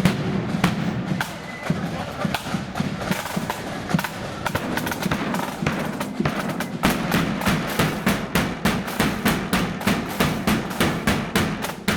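A marching band's snare and bass drums playing. At first there are scattered strokes and rolls; from about seven seconds in they settle into a steady marching beat of about three strokes a second.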